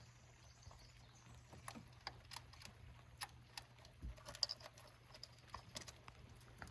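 Faint, scattered light clicks and taps from hands handling small parts and tools, over a low steady hum.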